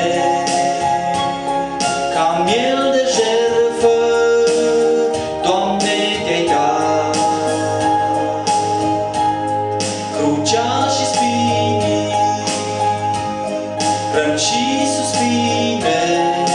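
Yamaha PSR-S arranger keyboard playing a slow gospel accompaniment: sustained chords over a steady bass and drum beat, with a man's voice singing a wavering melody in places.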